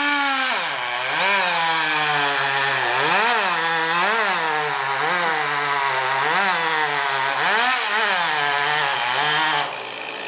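Chainsaw running at high revs, its pitch dipping and rising again about once a second, then cutting off shortly before the end.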